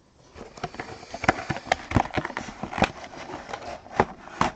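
Trading cards and their packaging being handled by hand: irregular light clicks, taps and rustles, a few sharper ones near the end.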